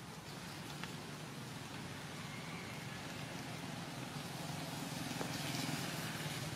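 A steady low engine-like hum that slowly grows louder.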